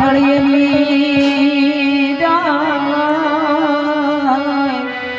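Male voice singing a Gujarati santvani bhajan, drawing out a word on a long wavering note, over a steady harmonium and a regular hand-drum beat.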